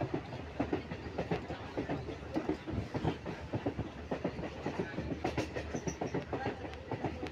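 Electric local train running at speed, its wheels clattering continuously over the rail joints above a steady low rumble.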